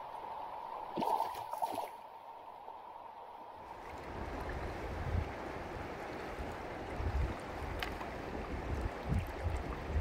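Shallow river water running steadily over gravel, with a few short splashes about a second in as a trout is held in the water in a landing net. From about four seconds in the water sound comes closer and fuller, with low, irregular bumps underneath.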